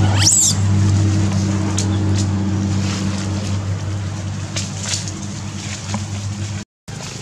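A motor runs steadily with a low hum that weakens after about three and a half seconds. A short, high squeak rises and falls just after the start. The sound cuts out completely for a moment near the end.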